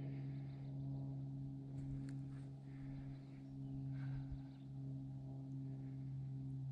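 Ambient intro music: a steady, low sustained drone.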